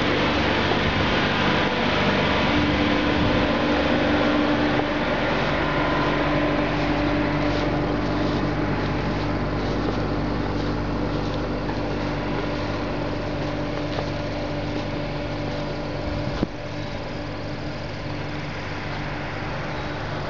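A motor running steadily with a constant, even drone. There is a sharp click about sixteen seconds in, after which the drone is a little quieter.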